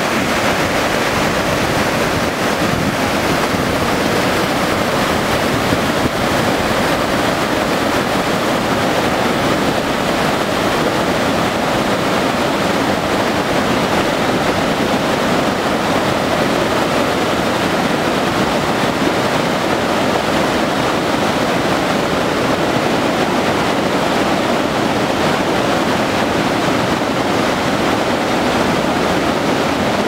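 Rushing white water of the Nile, loud and steady.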